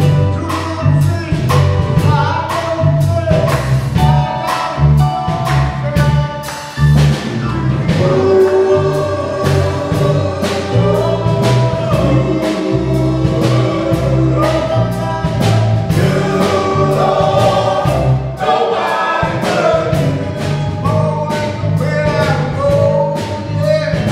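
Male gospel group singing in harmony, backed by bass guitar and a steady drum beat.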